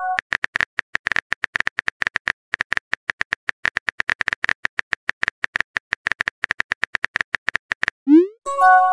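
Synthetic keyboard typing clicks from a texting-story app, rapid and regular at several clicks a second as a message is typed. Near the end comes a rising swoosh, then a short multi-note chime as the message is sent.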